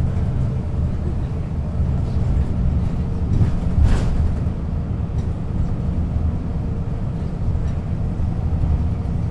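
Diesel engine of a 1996 Setra S 315 UL bus running steadily, a low drone, with one sharp knock about four seconds in.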